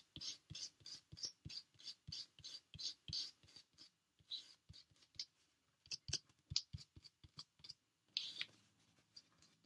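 Rubber adhesive-remover block rubbed back and forth over cardstock, lifting dried, gummy glue residue. Short scratchy strokes, about three a second, that thin out and stop near the end.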